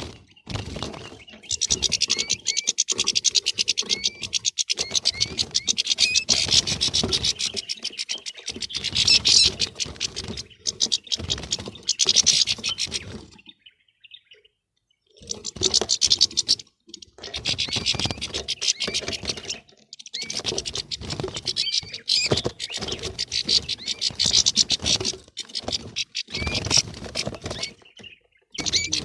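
European goldfinches twittering and chattering rapidly, in dense, squabbling runs of calls, as from many birds together. The calls break off for about a second and a half just before the middle, then resume.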